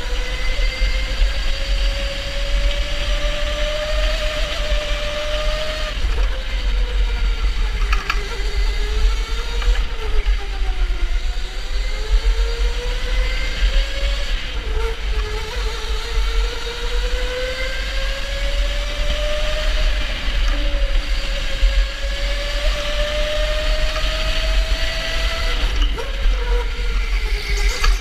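Electric go-kart motor whining under a constant low rumble. The whine rises in pitch for several seconds as the kart gathers speed, drops as it slows, then climbs again over a long stretch before falling away near the end.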